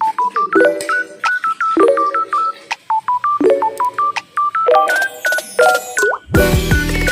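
Background music: a bouncy tune of short, beeping, stepped notes that repeats about every second, turning denser and louder near the end.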